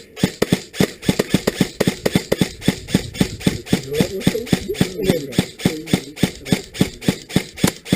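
Airsoft gun firing rapid single shots at an opposing player, about five sharp cracks a second with no let-up.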